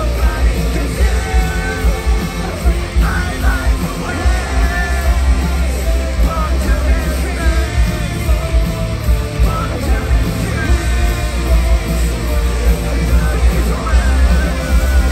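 Live rock band playing loudly, with heavy drums and bass under guitars and a singing voice.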